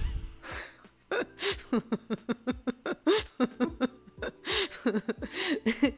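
People laughing hard in rapid, repeated bursts of ha-ha's and breathy gasps, with a short lull about a second in.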